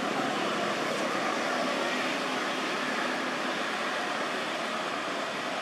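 A steady rushing background noise at an even level, with no distinct calls, knocks or other separate events.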